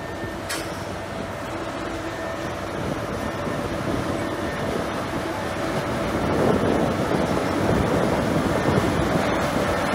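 Heavy earthmoving machinery's diesel engine running steadily, growing louder about two-thirds of the way through. One sharp click comes about half a second in.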